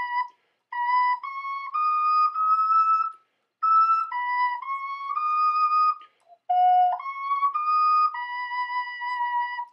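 Little Goose ocarina by Gosling Flutes playing a slow hymn melody: clear, pure notes in three phrases with short breath pauses between them, closing on a long held note that then stops.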